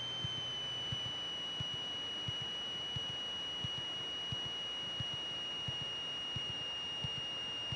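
Steady high-pitched electrical whine on a Cessna 182's cockpit intercom audio, dipping slightly in pitch about half a second in and then drifting slowly lower, with a faint tick about every two-thirds of a second.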